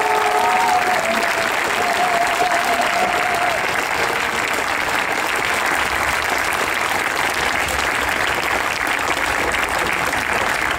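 Large outdoor crowd applauding steadily for a welcomed speaker, with a drawn-out voice calling out over the clapping in the first few seconds.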